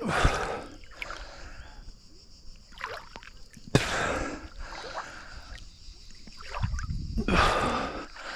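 A swimmer's strokes splashing and sloshing in river water, three surges of splashing about three and a half seconds apart.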